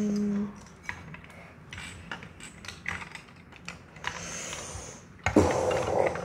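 Plastic Lego pieces clicking and tapping on a glass tabletop as they are handled and pressed together, in scattered small clicks, with a louder bump and rustle about five seconds in.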